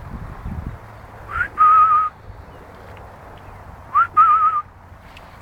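A person whistling twice to call a dog back: each call is a quick rising whistle followed by a longer wavering note, the two calls about two and a half seconds apart.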